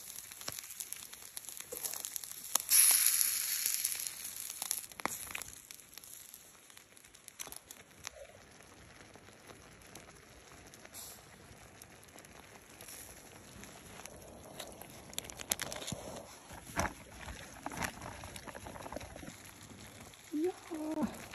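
Food sizzling over a charcoal grill, with a loud burst of sizzle about three seconds in that fades within a second or so, then quieter sizzling and crackle. Scattered clicks and taps of chopsticks against the metal bowl and grill.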